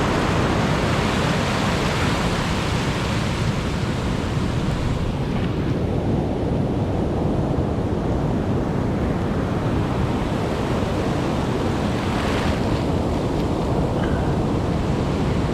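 Rough ocean surf breaking and washing ashore, with wind buffeting the microphone: a loud, steady rush of noise.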